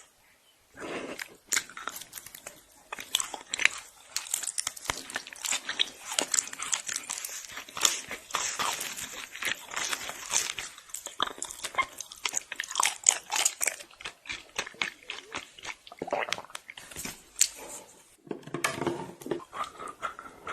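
Close-up eating sounds: crunchy bites and chewing, a dense, irregular run of crackling crunches with short pauses at the start and near the end.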